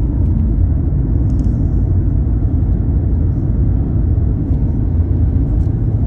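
Steady low rumble of a car driving along a paved road at speed.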